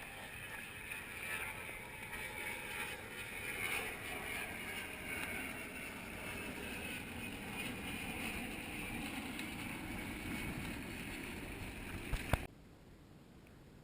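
Muffled, steady rush of wind and water noise while a sailing kayak moves along, heard through a GoPro's waterproof housing. About twelve seconds in, two sharp clicks sound and the rush cuts off suddenly to a faint hiss.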